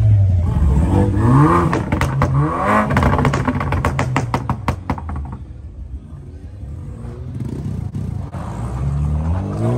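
A car engine revved in short blips, with a fast run of exhaust pops and crackles over the middle seconds. It drops back to a low idle, then revs up again near the end.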